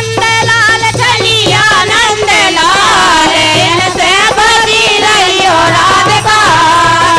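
Women singing a Kartik geet, a Bundeli folk devotional song, in chorus with a gliding, ornamented melody over a steady percussion beat.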